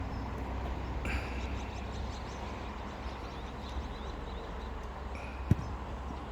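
A football kicked once, a sharp thud about five and a half seconds in, over a steady low rumble.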